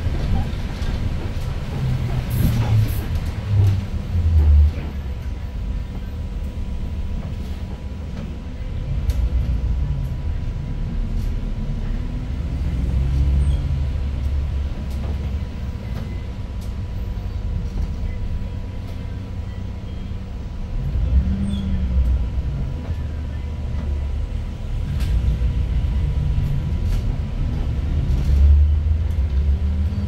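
Inside the cabin of a 2019 Daewoo NEW BS090 city bus driving in traffic, its GL08P CNG engine giving a continuous low rumble that swells several times as it pulls away and eases off. A faint steady whine runs underneath, with scattered light clicks and rattles.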